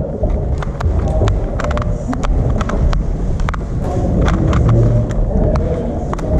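Rapid, irregular clicking of a speedcube's layers being turned by hand during a solve, several clicks a second, over a steady low rumble of room noise.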